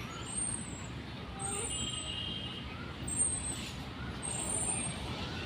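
Steady low rumble of outdoor traffic, with faint distant voices and a short high chirp that repeats about every second and a quarter.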